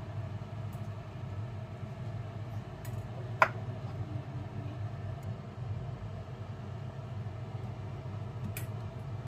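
Steady low hum with faint handling sounds, and one sharp knock about three and a half seconds in as cross-cut beef shank pieces are laid into an empty metal nonstick pot.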